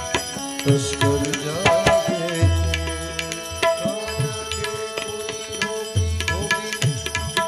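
Instrumental passage of a bhajan: tabla playing a steady rhythm of sharp strokes and deep bass strokes that swoop in pitch, under held melody notes.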